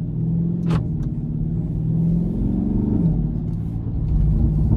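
Dodge Charger Scat Pack's 392 (6.4-litre) HEMI V8 running under way, heard from inside the cabin, its note climbing a little then dropping about three seconds in. A sharp exhaust pop sounds under a second in.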